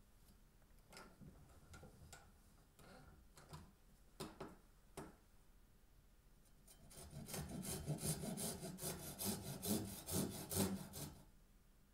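Fine-toothed handsaw cutting a shallow notch into a barked wooden stick, the groove for an ice-cream stick, taken only partway through. A few slow, separate strokes come first. About halfway in, a quicker, steady back-and-forth takes over at about four strokes a second and stops near the end.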